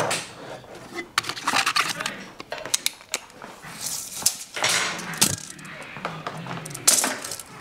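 Metal hand tools clinking and rattling in a tool chest drawer, then a steel tape measure being pulled out and handled, in a run of sharp clicks and short rattles.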